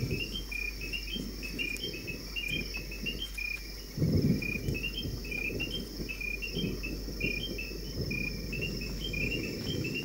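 Night rainforest insect chorus: a steady high-pitched drone with a repeating chirping call over it, about two short phrases a second. A low rumble runs underneath and swells louder about four seconds in.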